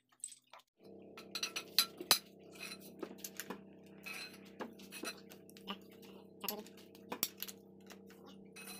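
Irregular metal clinks and clicks as a lever-type valve spring compressor presses down the valve springs of an Isuzu diesel cylinder head and the steel retainers and valve collets knock loose. A steady hum runs underneath from about a second in.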